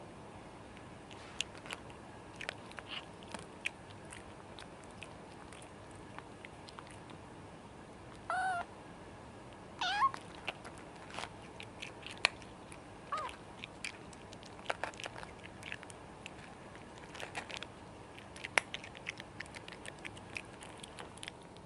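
Cats eating dry kibble close by, with scattered crisp crunches throughout. Three short meows break in, about eight, ten and thirteen seconds in, the second rising in pitch.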